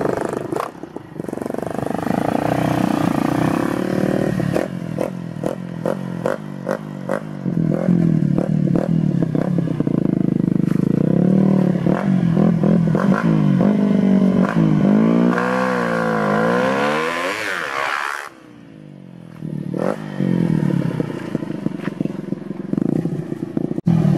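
Yamaha Exciter 135 LC motorcycle's single-cylinder four-stroke engine revving up and down, its pitch rising and falling repeatedly. A run of sharp ticks comes about five seconds in. The engine note drops away briefly about eighteen seconds in, then picks up again.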